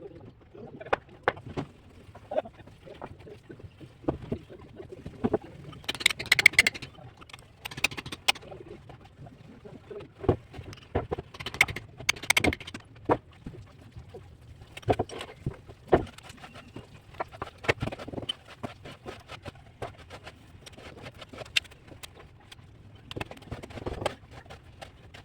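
Cement-sand plastering on a brick wall: irregular taps and knocks from a trowel working the mortar, with a few short, harsher scrapes about six and twelve seconds in.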